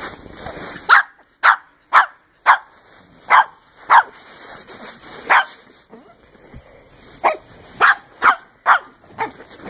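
A dog barking: about a dozen short, sharp barks with brief gaps between them, some coming in quick runs of two or three.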